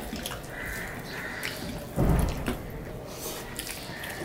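Wet eating sounds: fingers squishing rice and curry on the plate, with chewing and lip smacks heard as scattered small clicks. A louder dull thump comes about two seconds in.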